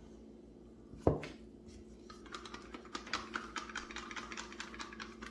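A single hard knock about a second in, then a stirring stick clicking rapidly against the side of a cup, several taps a second, as paint is mixed.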